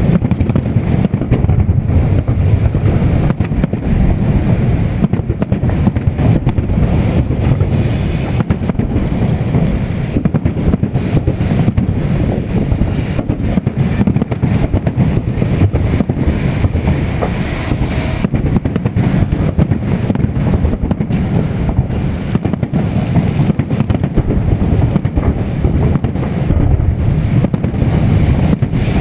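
Wind buffeting the microphone: a loud, steady low rumble with no distinct bangs.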